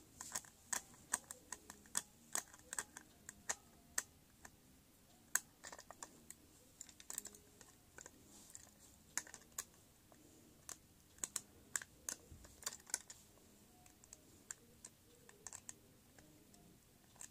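Faint, irregular small clicks and taps of a small screwdriver and hard plastic as a battery-powered toy train engine is taken apart, its shell being worked off its core.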